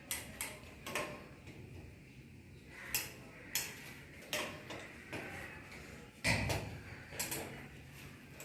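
Irregular sharp metallic clicks and clinks of metal hardware and tools being handled, with a heavier knock about six seconds in.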